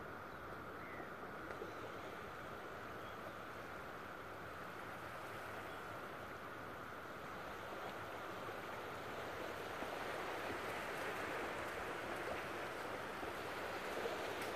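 Steady hiss of surf on a beach, growing a little louder in the second half.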